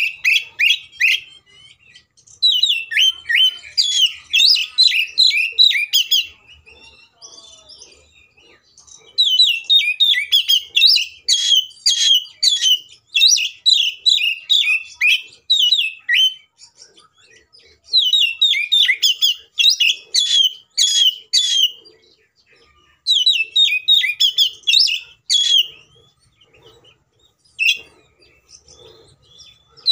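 Oriental magpie-robin (kacer) singing loudly in fighting mode: phrases of a few seconds of rapid, repeated chirping notes, several a second, broken by short pauses.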